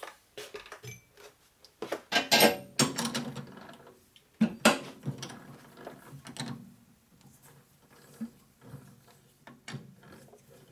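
Metal clanks, knocks and rattles as a part is set in a lathe chuck and the jaws are tightened with a chuck key. A cluster of loud sharp clanks comes about two seconds in and another a little after four seconds, then lighter clicks.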